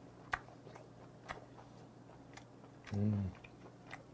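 A person chewing a bite of grilled steak, with a few sharp clicks and a short hummed "mm" about three seconds in.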